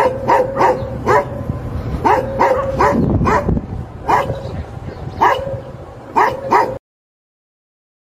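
Labrador retriever barking repeatedly, about a dozen barks, singly and in quick runs of two or three, over a low steady background hum. The sound cuts off abruptly about seven seconds in.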